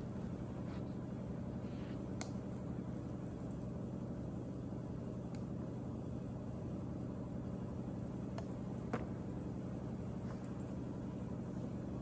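Steady low hum of room tone, with a few faint taps.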